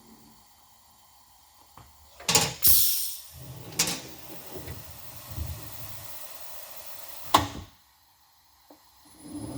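Metal tools handled during machine setup: several sharp knocks, with a steady hiss between them that cuts off suddenly after the last loud knock. A motor begins to spin up right at the end.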